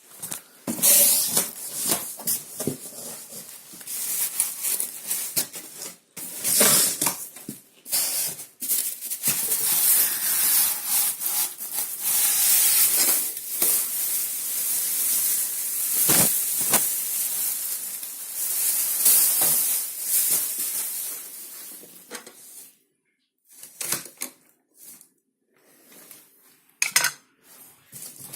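Packaging being handled and pulled off a new fridge: rustling, rubbing and scraping in bursts, with a few knocks. It goes mostly quiet in the last few seconds, broken by a few short handling noises.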